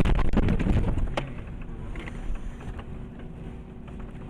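Vehicle engine and road noise, louder for about the first second, then settling into a steadier, lower rumble with a faint hum and a few light ticks.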